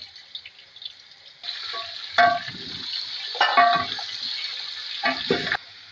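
Raw chicken pieces sizzling in hot oil and browned onions in a large aluminium pot, the sizzle starting about a second and a half in and cutting off abruptly near the end. The spoon stirring the chicken knocks and scrapes against the pot several times, each knock ringing briefly.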